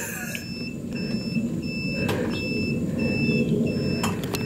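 Cricket RX5 electric golf cart's reverse warning beeper sounding as the cart backs up: a high, evenly repeating beep, about two a second, over a low rumble.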